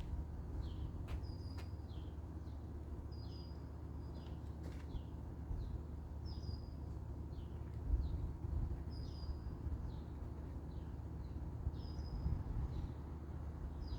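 A bird repeating a short, high chirping phrase about every two to three seconds, each phrase a sharp high note followed by a few quick falling notes. Underneath runs a steady low rumble, with a few sharp clicks in the first seconds.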